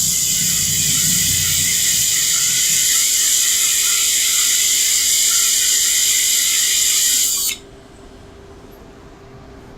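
TIG welding arc from an AHP AlphaTIG 200x, hissing steadily while a bead is laid, then cut off abruptly about seven and a half seconds in as the weld ends.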